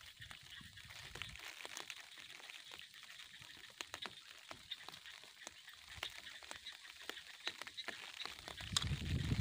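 Irregular rustling and crackling of leafy waterside plants being handled by hand, with a louder, deeper rustle near the end.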